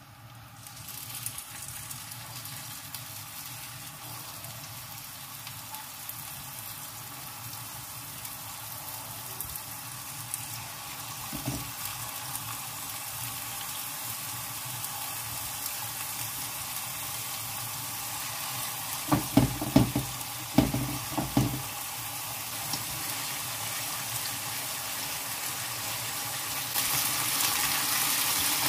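Chicken fillets frying in coconut oil in a nonstick pan: a steady sizzle that starts about a second in as a fillet goes into the hot oil and slowly grows as more pieces are added. There are a few sharp knocks about 19 to 22 seconds in, and the sizzle gets louder near the end as the pieces are turned with a fork.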